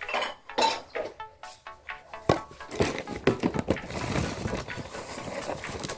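Background music, with a run of short clicks and clatters in the middle.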